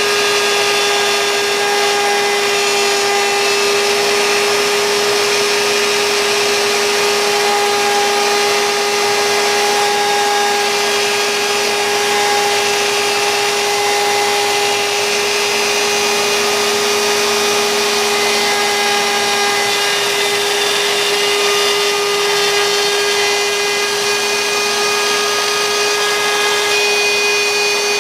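CNC router cutting wood: the spindle runs with a steady whine over the noise of the bit cutting.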